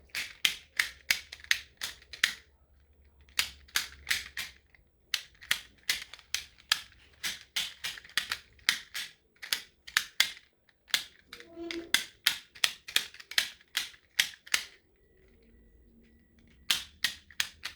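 Plastic Puzzle Ball pieces clicking and clacking as they are handled and fitted together, a rapid run of sharp clicks several times a second with a few short pauses. The clicks stop for a moment late on, then resume briefly.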